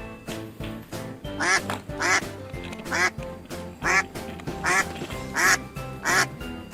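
Duck quacks, seven in a row about a second apart, over background music.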